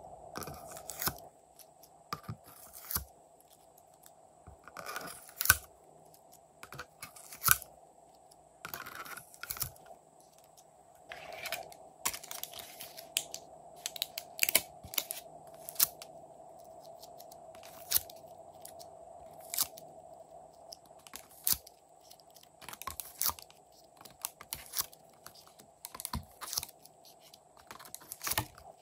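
A thin clear plastic mold tray clicking and crackling irregularly as soft clay discs are pressed out of its cups by hand and dropped onto slime. A faint steady hum runs underneath.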